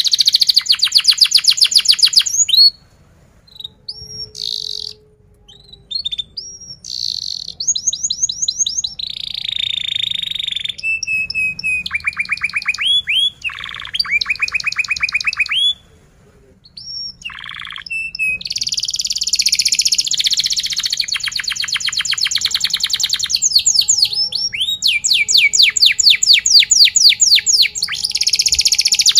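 Domestic canary singing: long runs of fast rolling trills mixed with short rising whistled notes. The song pauses briefly about three seconds in and again about halfway, and the densest trills come at the start and near the end.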